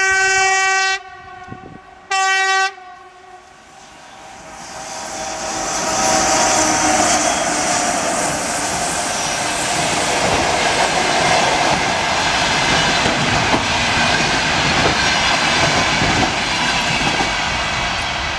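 ChS4T electric locomotive's horn sounding twice, a blast of about a second then a shorter one, followed by the passenger train running past, its wheel and coach noise swelling over a few seconds and then staying loud and steady.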